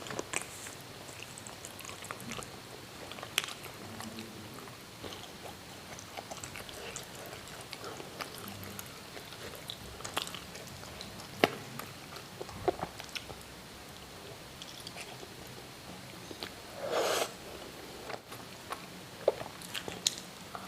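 Close-miked chewing and biting of siomay (steamed fish dumplings and stuffed tofu), with scattered wet mouth clicks and smacks and one louder bite or slurp about 17 seconds in.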